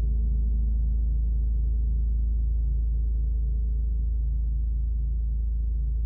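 40-inch Wuhan Feng gong ringing on in a deep, sustained hum that slowly fades, with a low tone that pulses in a slow, even beat. No new strike is heard.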